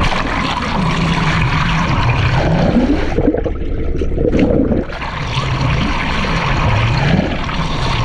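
Water rushing over a GoPro held underwater beside a moving boat, a loud steady churn with a low note that slides up and down several times.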